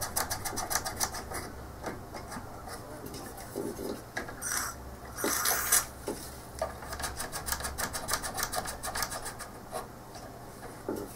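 Two short hisses of an aerosol contact-cleaner spray, about four and a half and five and a half seconds in, the second longer and louder. Rapid small clicks and rustling of handling go on around them.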